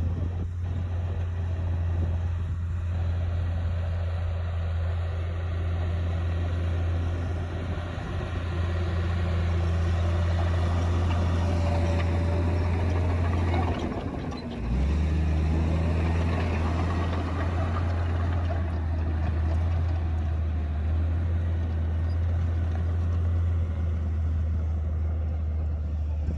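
Komatsu D58P bulldozer's diesel engine running hard with a steady low drone. It eases off briefly a little past halfway, then picks up again.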